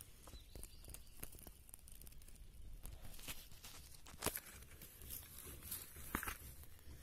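Faint irregular rustling and crackling clicks over a low rumble, with a sharper click about four seconds in and a cluster of clicks near the end.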